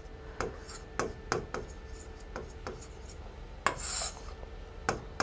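Pen writing on the glass of an interactive touchscreen board: a string of light, irregular taps and scratches as the letters go down, with a short rubbing swish just under four seconds in.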